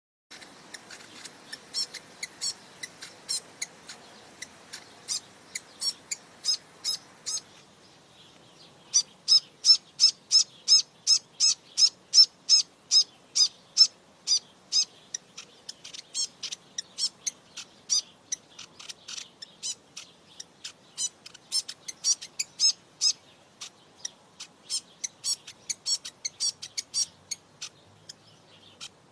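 White-throated dipper calling: a long run of short, sharp, high calls, about three a second, with a brief pause about eight seconds in.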